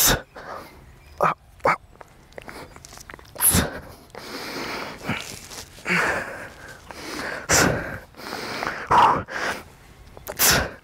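A man exhaling hard and grunting with effort, a sharp breath every one to two seconds, as he strains through chin-up reps.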